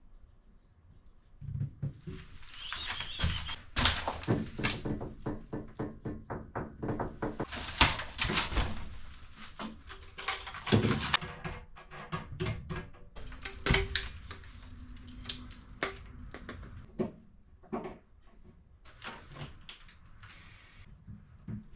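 Objects being handled in a small room: a long, irregular run of clicks, knocks and thunks, busiest in the first half.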